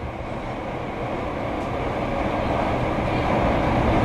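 Train sound effect: the steady rumble and hiss of a passenger train running, fading in from silence and growing gradually louder.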